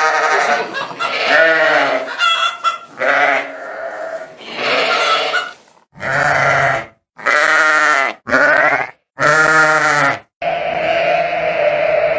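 Bleating farm animals: a run of about nine quavering bleats, each under a second long. In the second half they are separated by short dead silences, and a steadier sound runs on near the end.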